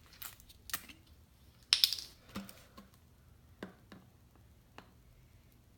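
Plastic bottles and caps being handled: a string of irregular clicks and taps, the loudest pair about two seconds in.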